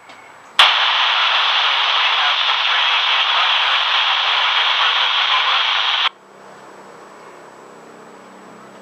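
Handheld FM radio's speaker giving a click, then loud steady static hiss with no voice in it, the open-squelch noise of a receiver with no usable signal as the ISS downlink drops out. About six seconds in the hiss cuts off abruptly, leaving only a faint low hum.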